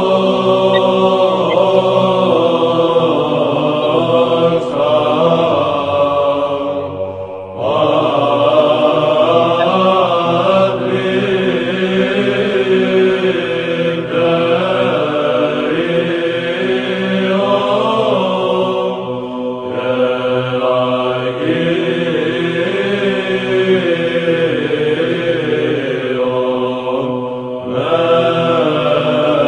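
Byzantine chant: voices singing a slow, wavering melody over a steady held drone, with short breaks between phrases about seven seconds in and again near the end.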